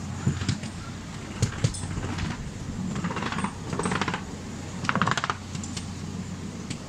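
Miniature railway train running along the track with a steady low hum. Its wheels give single sharp clicks over rail joints, then three short bursts of rapid clicking and rattling as the train reaches and crosses a small bridge.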